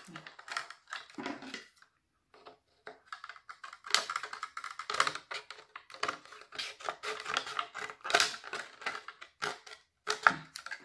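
Metal scissors cutting down the side of a thin clear plastic cup: a dense run of small crackling clicks as the blades work through the plastic, with a brief pause about two seconds in.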